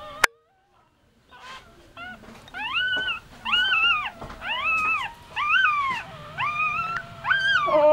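Newborn puppies crying: a string of short, high-pitched whines, each rising and then falling, about one a second, starting about two seconds in.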